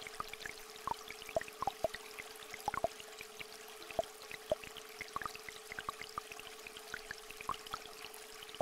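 A steady electronic tone held throughout, over a small stream trickling, with many small water drops plinking several times a second.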